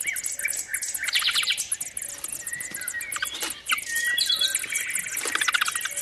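European robin nestlings begging for food: bouts of rapid, high-pitched chirping come several times, with short thin whistled notes between them.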